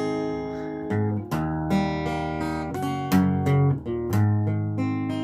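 Acoustic guitar playing strummed chords, the chord changing every second or so.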